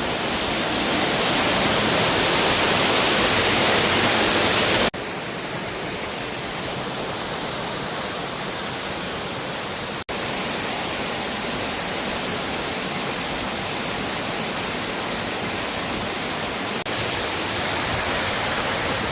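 Steady rushing water, a continuous even roar whose level drops or jumps abruptly about 5, 10 and 17 seconds in.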